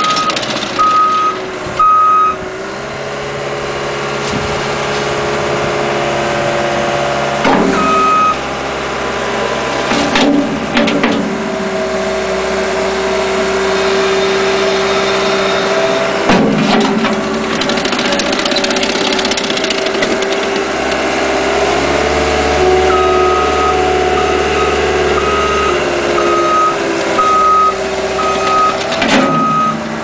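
Cat 297C compact track loader's diesel engine running as the machine is driven, its pitch shifting up and down several times. Its backup alarm beeps in even short pulses at the start and again over the last several seconds, and there are a few sharp clanks along the way.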